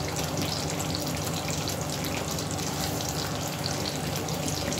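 Chicken gravy simmering in a kadhai on a gas flame: a steady sizzle full of small pops and sputters, with a low steady hum underneath.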